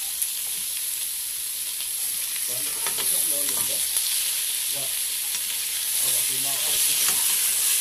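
Chopped pork frying in a big pot with a steady, loud sizzle.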